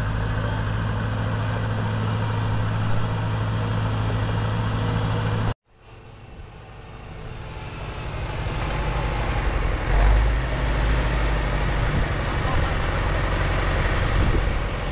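Tractor engine running steadily. About five and a half seconds in, the sound cuts off sharply, then fades back in as an engine running, now with more rumble and rattle.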